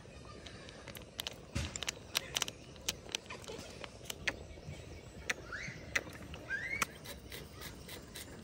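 Scattered light clicks and taps of cooking utensils and dishes, with two short rising chirps about five and a half and six and a half seconds in.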